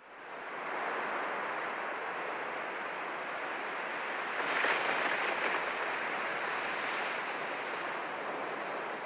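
Steady rushing noise, like surf, fading in over the first second and swelling briefly about halfway through.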